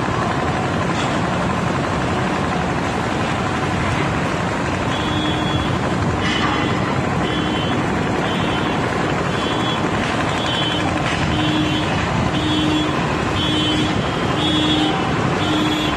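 Steady loud rushing noise at a building fire. From about five seconds in, an electronic alarm beeps a little more than once a second.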